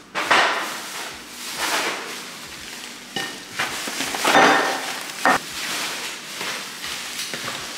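Plastic shopping bags rustling and crinkling in several irregular bursts as groceries are pulled out of them.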